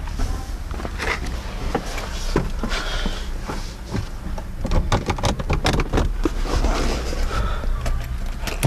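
Mercedes-Benz W123 200D's four-cylinder diesel idling steadily, with scattered clicks and knocks over it, most of them about halfway through.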